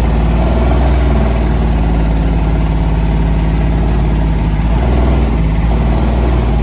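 Small diesel engine of an Intimidator UTV running steadily while still cold, a few moments after a hard start; the pitch holds nearly level with a slight dip about five seconds in.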